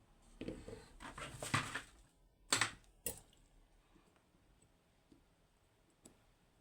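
Small metal lock parts being handled while a pin-tumbler lock is taken apart: a rough scraping and rubbing for about a second and a half, then two sharp clicks a little over half a second apart, and a faint tick near the end.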